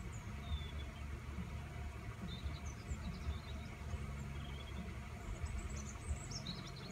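Steady low outdoor rumble, with small birds chirping faintly: a few short chirps early on and a cluster of them near the end.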